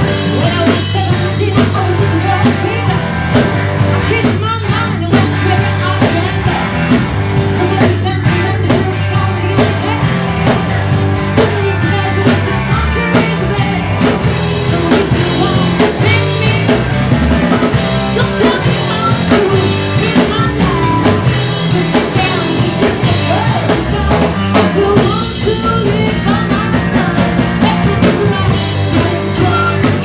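A live rock band playing: a woman singing over two electric guitars, an electric bass and a drum kit keeping a steady beat.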